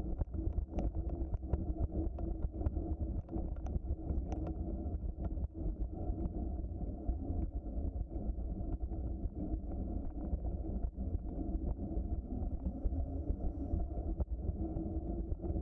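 Bicycle rolling along a trail: a steady, muffled low rumble from the tyres and frame, with frequent small rattles and clicks.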